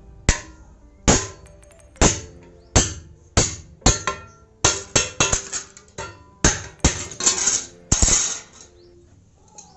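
Hammer blows on a hand punch driving a hole through sheet steel laid on a metal block: about fifteen sharp metallic strikes. They come roughly one a second at first, then faster and closer together in the middle.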